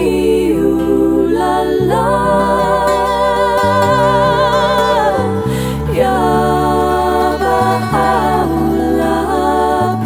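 Devotional song: two women's voices sing long, held notes with vibrato, gliding between pitches, over a plucked-string accompaniment with steady low notes.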